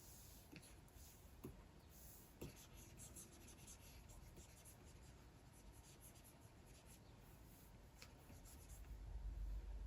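Soft scratching and light taps of a stylus nib stroking across the surface of a Wacom Cintiq 24 Pro pen display. A low rumble comes up near the end.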